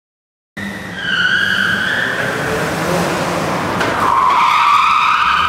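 Drift car sliding sideways, its tyres squealing loudly over the engine; the sound starts suddenly about half a second in. The squeal shifts lower and grows louder about four seconds in.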